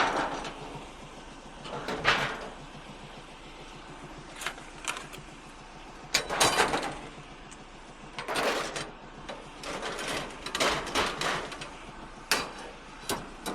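Scrap metal being handled and loaded, a series of separate clanks, knocks and scrapes with pauses between them.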